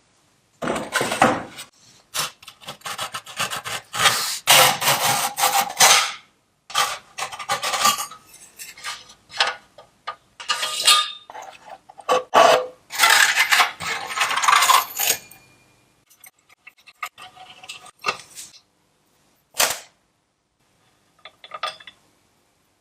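Hand scraping and rubbing on the parts of a knife sharpener machine under repair, in irregular strokes a second or two long with short pauses, growing sparse and fainter in the last third.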